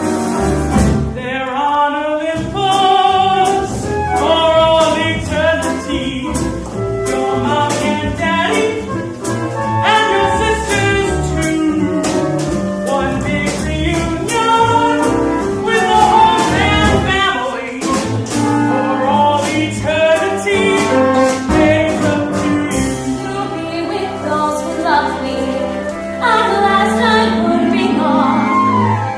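A musical-theatre song performed live: voices singing with vibrato over a small pit band with bass and percussion.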